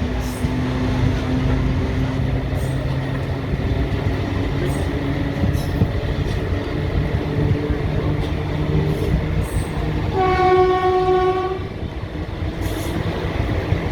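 ICF passenger coach running on the rails behind a WAG-5 electric locomotive: a steady rumble of wheels on track with faint rail-joint clicks. About ten seconds in, the locomotive horn sounds one steady blast lasting about a second and a half.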